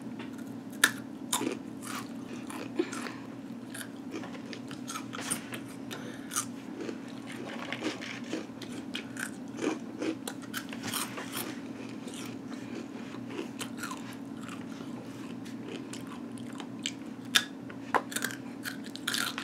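Takis Fuego rolled tortilla chips being bitten and chewed, a run of short crisp crunches, with a steady low hum underneath.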